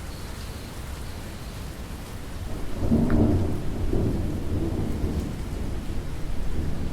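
Steady rainfall, with a low rumble of thunder that swells about two and a half seconds in and fades over the next few seconds.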